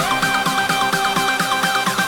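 Electronic dance background music: sustained synth chords with fast, repeating falling synth notes in a steady rhythm.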